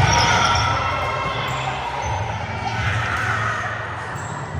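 Indoor volleyball play in a gym: a sharp hit of the ball right at the start, then echoing players' voices and a few short high squeaks, typical of sneakers on the court floor.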